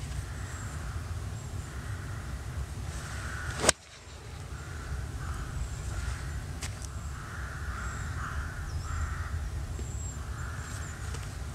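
A four iron striking a golf ball off the tee: one sharp crack about four seconds in, the loudest sound here. Birds call over and over in the background above a steady low rumble.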